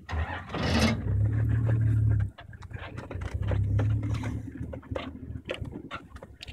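Game-drive vehicle's engine running with a steady low hum that swells louder twice, with scattered light clicks and knocks over it.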